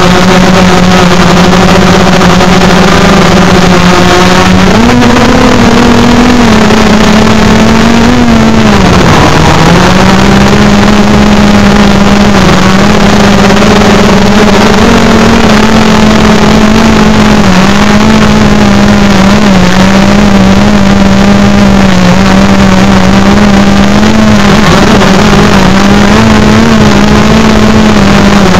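DJI Phantom 3 Pro quadcopter's motors and propellers in flight, recorded from a recorder strapped to the drone with tape over its mic: a loud, steady buzzing hum. Its pitch rises about five seconds in, dips sharply near nine seconds, then holds with small wobbles as the motor speeds change.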